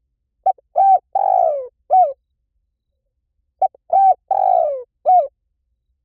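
Spotted dove cooing: two repeats of its phrase, about three seconds apart. Each phrase is a short pickup note, a coo, a longer falling rough coo, and a closing coo.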